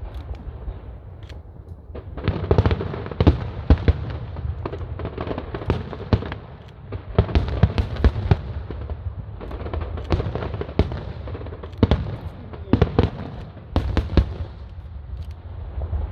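Aerial fireworks display: shells bursting in rapid volleys of sharp bangs over a low rumble, with a brief lull about a second in.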